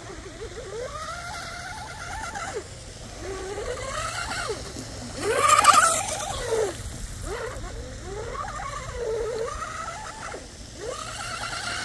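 Oxidean Mini-Dom RC speedboat running at full throttle on 4S: its brushless motor whine rising and falling in pitch as the boat turns and speeds up, with the hiss of its spray. It is loudest about six seconds in as it passes close by.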